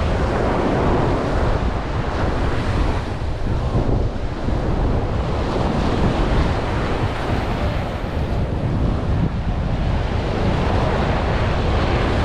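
Wind buffeting the microphone over the steady wash of small surf breaking on a sandy beach.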